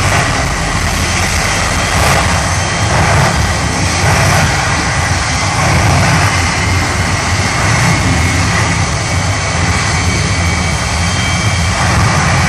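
Jet engine of a jet-powered exhibition vehicle running at full power with a large flame. A loud, steady noise with a heavy deep rumble underneath, unbroken throughout.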